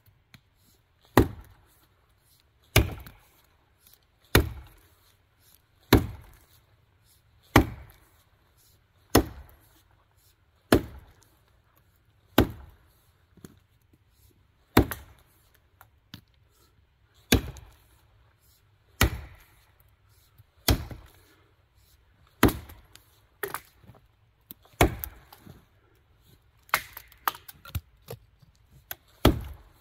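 Axe chopping into a standing tree trunk: one sharp wooden blow about every second and a half, the blows coming quicker and less even in the last few seconds.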